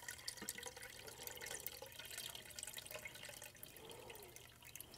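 Ginger beer wort poured from a stainless steel pot through a fine mesh strainer into a plastic bucket: a faint, steady splashing of liquid with small drips, thinning to a trickle near the end as the pot empties.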